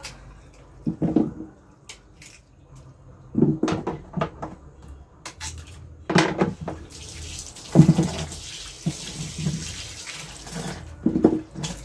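Peeled inhame roots being washed by hand in a sink: irregular splashes and knocks as they are rubbed and handled. Tap water starts running about seven seconds in and stops just before the end.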